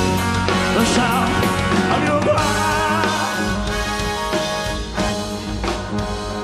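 Live band music: drums, bass, guitars and keyboards playing a rock ballad, with a wavering, sustained melody line on top.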